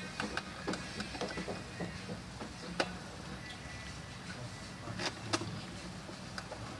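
Small scattered clicks and taps of a screwdriver and the RAM cover being fitted and screwed onto a laptop's bottom case, with a sharper click near the middle and two more a little after, over a steady low hum.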